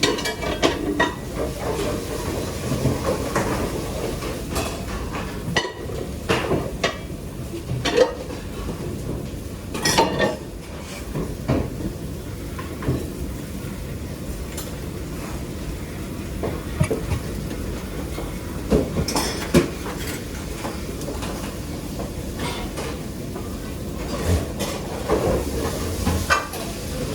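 Pots, pans and metal utensils clanking and knocking at irregular intervals in a busy commercial kitchen, over a steady background noise.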